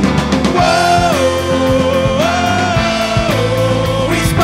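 Live rock band playing with electric guitar, bass and drum kit. A lead line of long held notes slides down and back up between pitches over the band.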